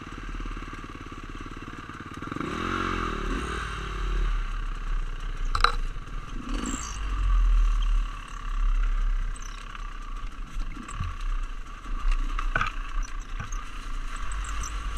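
Dirt bike engines running, with one engine revving up and back down a few seconds in. Two sharp knocks of the bike against brush or ground come about six and thirteen seconds in.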